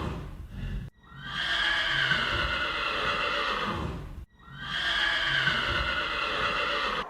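A long animal call that falls slightly in pitch, sounded three times in a row with short breaks about a second in and just past four seconds in.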